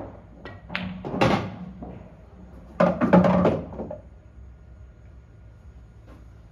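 Pool balls on an English-style pub pool table: clacks and hollow thunks as balls knock together and a potted ball runs down the table's internal return channel. The loudest clunks come about three seconds in and die away about a second later.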